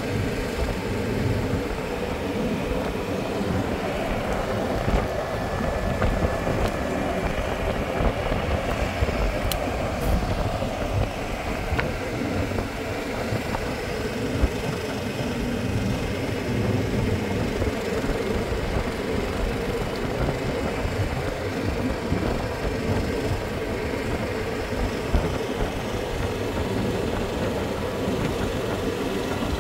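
Steady rumble of a vehicle driving along a paved road, with wind buffeting the microphone.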